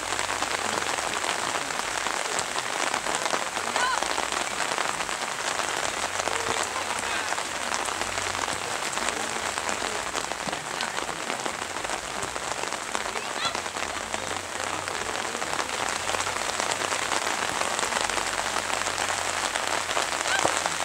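Steady rain pattering close to the microphone, a dense even hiss of many small drop ticks.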